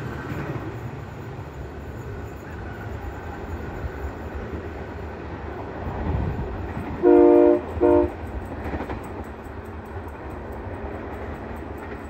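Diesel train running with a steady low rumble, its horn sounding two blasts about seven seconds in, a longer one and then a short one.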